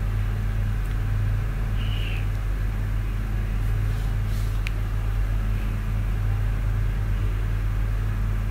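Steady low hum with a faint rumble, even in level throughout. A faint click about halfway through.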